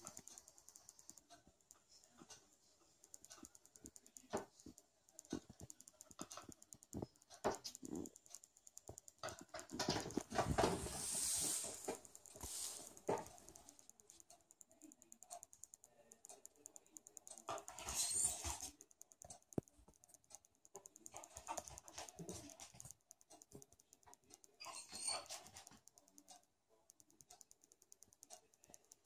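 A long-haired dog shifting about on a hardwood floor: scattered light ticks of its claws, with a few short breathy bursts of panting. The longest burst comes about ten seconds in and lasts a couple of seconds.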